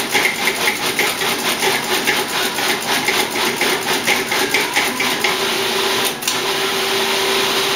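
Food processor running, its blade chopping sofrito vegetables, with a steady motor hum under a fast rhythmic chatter of about five beats a second; the chatter eases into a smoother hum about six seconds in.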